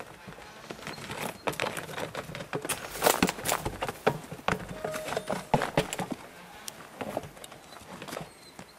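A round feed tub being nosed, knocked and shoved across dirt ground by a yearling colt: irregular knocks and scuffs, busiest about a third of the way in, with the colt's hoofsteps among them.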